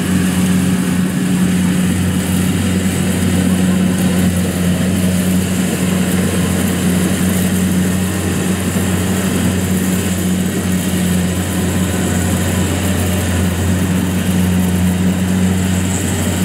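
Kubota DC-70 Plus combine harvester's V2403 four-cylinder diesel running steadily under heavy load while it cuts and threshes lodged rice: a loud, even, deep hum that does not change pitch.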